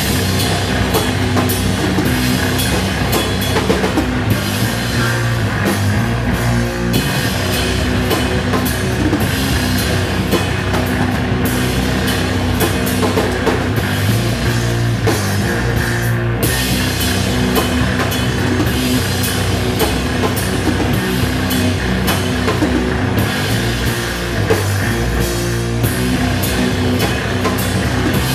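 A black metal band playing live: electric guitar and drum kit at full volume, with fast, dense drumming and a few changes of section.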